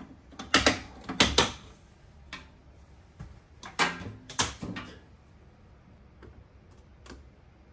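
Clunks and knocks of a sheet-metal access cover on a laser cutter's cabinet being handled and set aside: several in the first second and a half, another cluster about four seconds in, then a faint click near the end.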